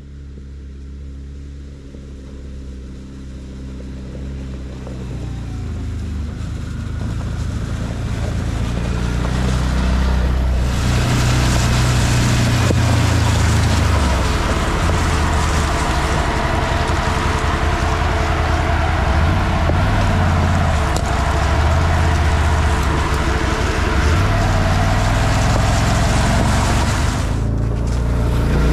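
ODES 650 ATV engine approaching and getting steadily louder over about ten seconds, then running close by with its tyres crunching over dry leaves and gravel, its pitch rising and falling a few times as the throttle changes.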